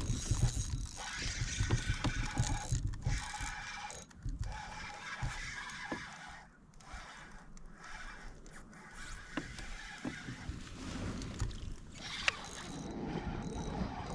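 Noise from a fishing kayak on the water: a continuous rustling, splashy haze with an irregular low rumble and a few light knocks from handling the boat and gear.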